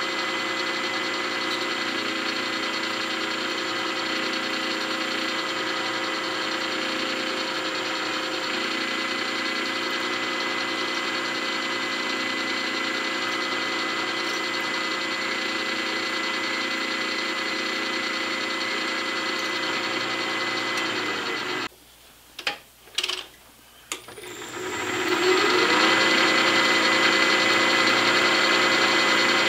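Vertical milling machine's spindle and motor running steadily with a drill bit feeding into an aluminium part. Near the end the sound cuts out for about three seconds, apart from a few short bursts, then comes back louder.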